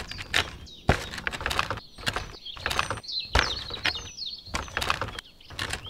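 Irregular wooden knocks and clatters as short sticks are dropped and laid into a small wooden toy trailer, with small birds chirping in the background.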